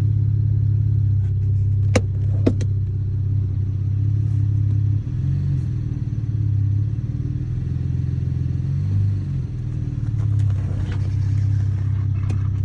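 A 2013 Chevrolet Camaro's 3.6-litre V6 engine idling steadily, with two sharp clicks about two seconds in.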